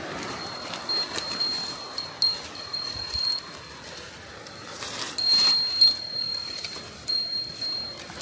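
A small metal bell jingling and ringing in a high, clear tone, struck again every second or so as the wearer walks. Footsteps rustle on leaf litter underneath.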